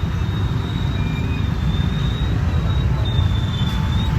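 Dense, slow-moving road traffic: many vehicle engines running in a steady low rumble, with a faint thin high whine drifting in and out.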